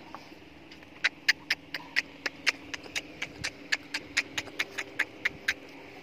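A fast run of about twenty sharp clicks, about four a second, starting about a second in and stopping shortly before the end, some much louder than others.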